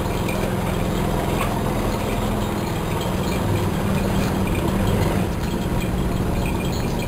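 An engine running steadily at low revs, a constant low hum.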